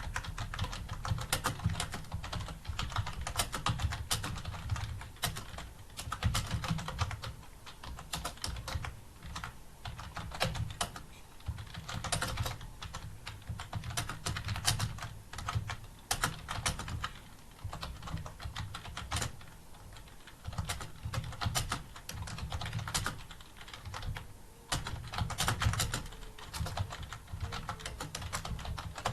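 Fast typing on a computer keyboard: a rapid, uneven stream of key clicks in bursts with short pauses between them.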